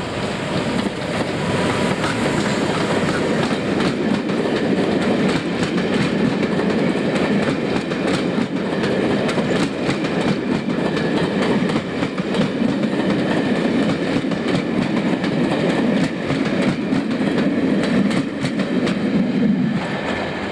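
Electric locomotive-hauled passenger train passing through a station: a steady rumble of wheels on rails with rapid clicking over rail joints and pointwork. The sound eases off near the end as the last coach goes by.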